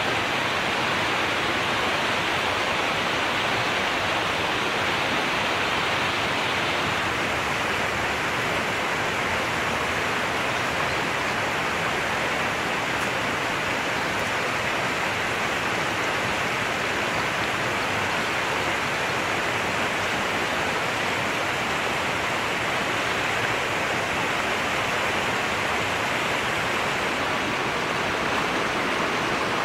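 River water rushing steadily, a loud even rush with no breaks.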